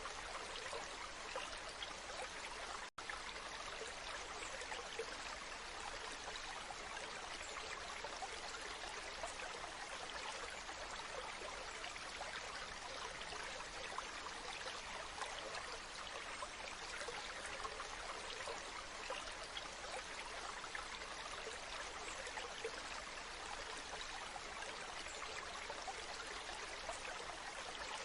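Waterfall water rushing in a steady, even hiss, with a split-second dropout about three seconds in.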